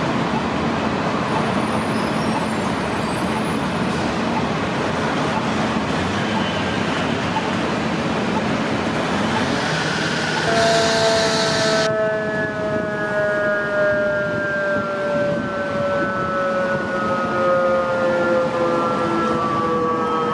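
A steady rushing noise from the fire scene. About halfway through, a fire engine siren comes in and winds down, its pitch falling slowly and evenly.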